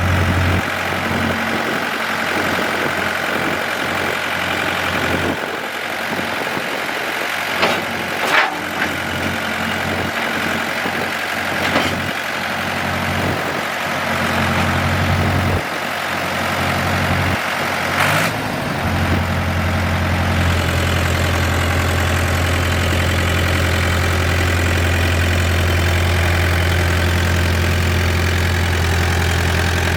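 1996 Ford 555D backhoe loader's diesel engine idling, with a few sharp knocks about eight seconds in and again near eighteen seconds. After that the low drone settles into a steadier, more even note.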